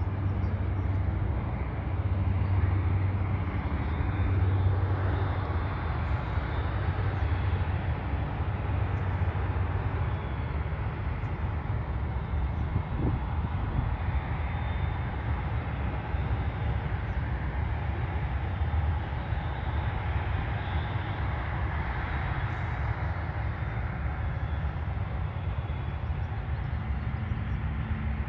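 Jet airliner engines running steadily, a continuous low noise with a hiss over it and no separate events.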